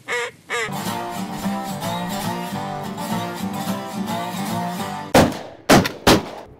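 Acoustic guitar music, then about five seconds in three shotgun shots in quick succession, all within about a second.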